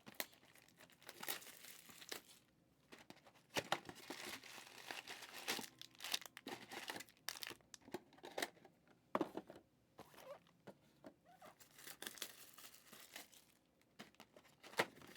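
Trading-card packaging being handled close up: plastic wrap or foil packs crinkling and tearing in short, irregular rustles.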